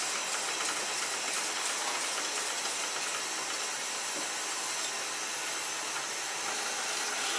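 Kitchen knife being sharpened on a whetstone: the blade scraping back and forth over the stone, making a steady hiss.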